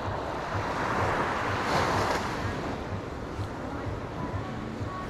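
Surf breaking on a beach, a wash of waves that swells about two seconds in and then eases.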